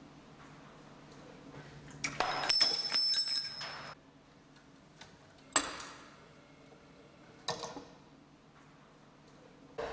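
Mechanical clicks and clinks from the parts of a home-built chain-reaction machine: a cluster of clicks with a high metallic ring about two seconds in, a single sharp knock a little past halfway, and a brief clatter near the end, with a faint low hum between them.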